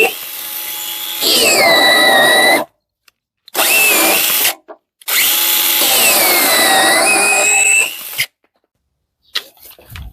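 Parkside PGHSA 20 Li cordless mini chainsaw running in three bursts, the last two separated by short pauses, while cutting branches. The motor whine drops in pitch as the chain bites into the wood, then climbs back. A few light knocks follow near the end.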